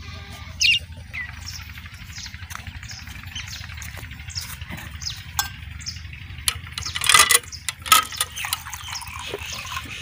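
Small birds chirping in short, high, scattered calls. About seven seconds in, water splashes from a metal pipe into a steel tumbler in a few louder bursts.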